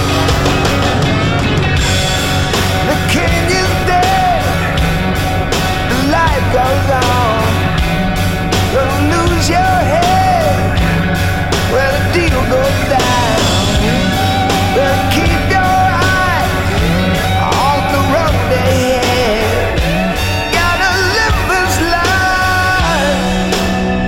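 Rock music with singing and a steady beat.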